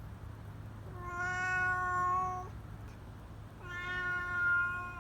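Eleven-year-old domestic cat yowling twice, long drawn-out "uwaan" cries of about a second and a half each, held at a steady pitch.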